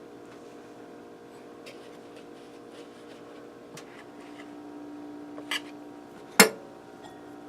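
Forks and a metal bundt pan being worked to free a baked cake: light scrapes and taps, a clink about five and a half seconds in, then one sharp, loud clank of metal against the pan or a plate. A steady low appliance hum runs underneath.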